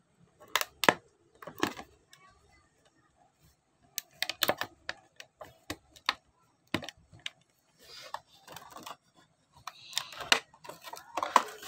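Hands prying open a toy's plastic blister pack on its cardboard card: scattered sharp cracks and clicks of stiff plastic, with denser crinkling near the end.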